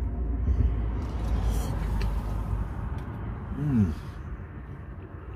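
Low rumble of road traffic passing on the busy flyover, strongest in the first three seconds and easing after. About three and a half seconds in, a short hummed 'mmm' rises and falls in pitch from the man eating.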